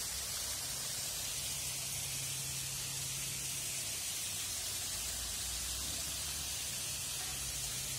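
Running water, a steady, even hiss with no breaks.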